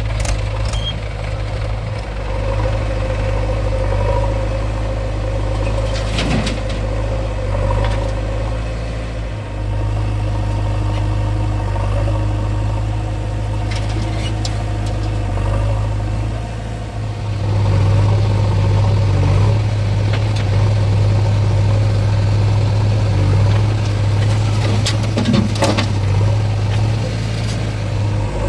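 Diesel engine of a JCB 3DX backhoe loader running steadily, then working harder and louder a little past halfway. A few short knocks or clanks come through over the engine.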